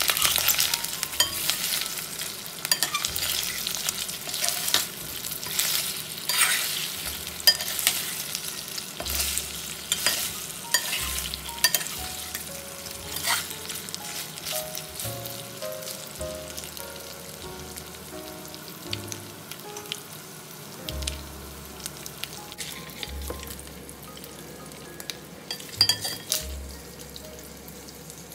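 Pork belly cubes sizzling as they fry in a stainless steel pan, with metal tongs clicking against the pan as the pieces are turned. The sizzle is loudest at first and dies down gradually, with a few clinks near the end.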